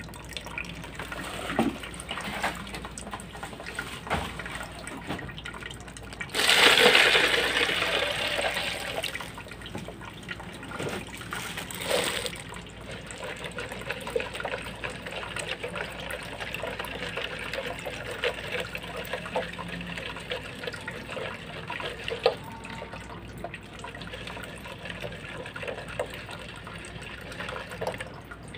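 Leach-tank circulation running: liquid pumped back through a return pipe and splashing steadily into a tub of solution, with scattered small clicks and rustles. About six seconds in, a louder rushing burst lasts some three seconds.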